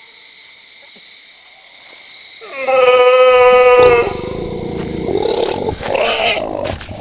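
An animal-like cry: about two and a half seconds in, a loud, steady, pitched howl, then rough, raspy growling with a wavering pitch.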